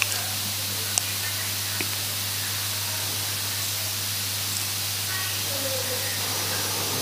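Steady hiss of microphone and recording noise with a low hum under it, and a few small clicks near the start.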